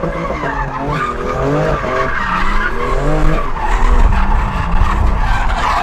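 BMW M2 Competition's twin-turbo straight-six revving hard, its pitch rising and falling repeatedly, with tyres squealing as the car drifts, heard from inside the cabin. A heavy low rumble builds in the second half.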